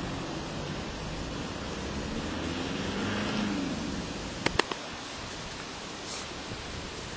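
Steady outdoor background noise, swelling a little near the middle, with three sharp clicks in quick succession a little past halfway.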